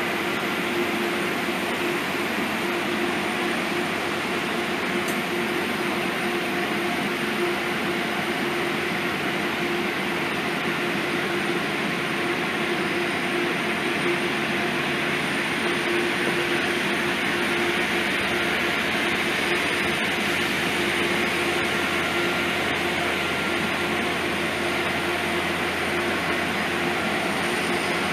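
Trenhotel sleeper train and its locomotive running during a slow shunting move into the station platform: a steady, unbroken hum with a constant mid-pitched tone.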